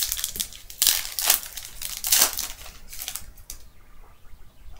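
Shiny foil wrapper of a Panini Prestige football card pack being torn open and crinkled by hand, in loud crackling bursts through the first three seconds or so, then quieting.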